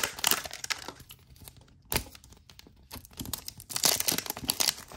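Plastic wrapping crinkling and tearing as a toy surprise capsule and its small bags are opened by hand, with a single sharp click about two seconds in.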